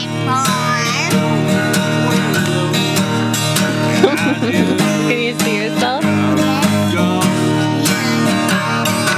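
Country-style music led by strummed acoustic guitar, with a steady strumming rhythm.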